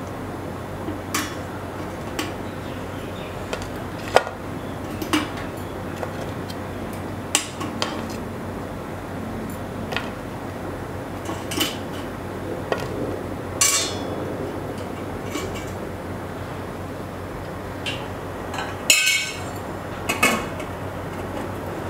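Stainless-steel idli steamer plates clinking and knocking as crab pieces are set on them for steaming, scattered light taps with a louder metal clatter near the end as the steamer lid is handled.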